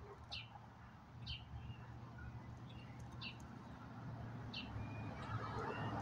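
A small songbird repeating a short, high, falling chirp about once a second, with a low rumble growing louder toward the end.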